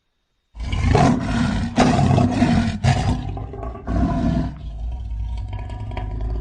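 A lion roar used as a creature sound effect, made from American lion sounds. It starts about half a second in as a series of four loud bursts, then settles about four seconds in into a lower, steadier rumble that carries on.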